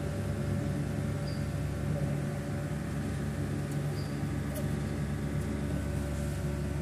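Steady low hum of an energised star-delta pump starter panel, its contactors pulled in and the pump motor running after a repair.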